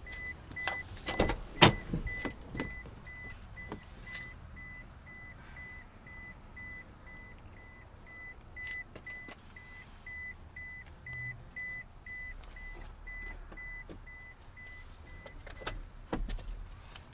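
Toyota Tacoma's cabin warning chime beeping steadily, about three beeps a second, stopping a little before the end; a few sharp knocks and handling thumps about a second in and again near the end.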